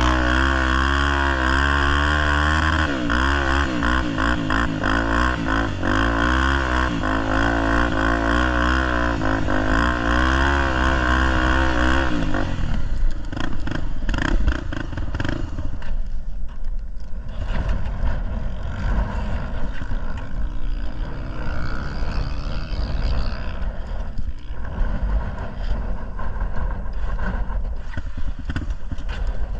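Honda Tornado enduro motorcycle's single-cylinder engine running while ridden, its revs wavering up and down. About twelve seconds in, the clear engine note gives way to a rougher rushing, rattling noise in which the engine is less distinct.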